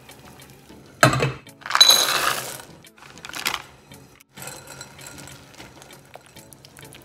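A knock about a second in, then a loud clattering rush of chocolate chips going into a glass bowl over a saucepan, and a shorter clatter a little later. From about halfway on, a silicone spatula scrapes and clicks against the glass bowl as it stirs chocolate chips and butter.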